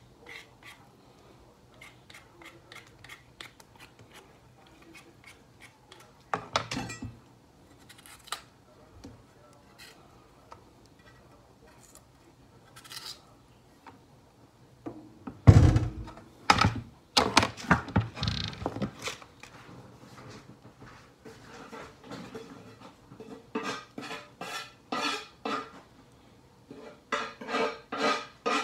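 A potato being peeled with a small kitchen knife: a run of short scraping strokes. About halfway through comes a loud thunk, then clattering of knives and dishes, and near the end a quick series of knocks.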